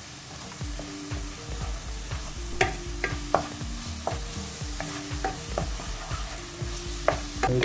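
A wooden spatula stirs and scrapes thick masala paste frying in oil in a nonstick pan, with a soft sizzle and irregular taps and scrapes against the pan. The paste is being fried down until its colour deepens.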